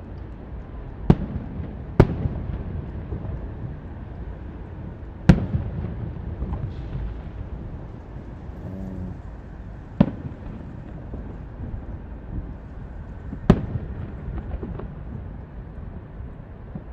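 Aerial fireworks shells bursting: five sharp booms at uneven intervals, over a steady low rumble of more distant bursts.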